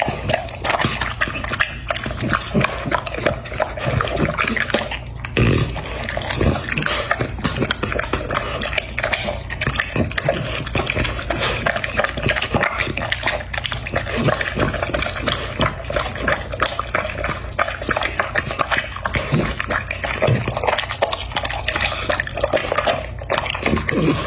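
A dog eating wet food (meat and vegetable pieces in broth) from a bowl: continuous fast, wet chewing and smacking of its jaws, with slurping.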